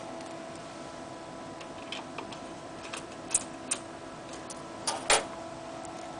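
Small plastic and metal clicks and taps from laptop hard-drive parts being handled, a few scattered strikes with the loudest pair about five seconds in, over a steady electrical hum.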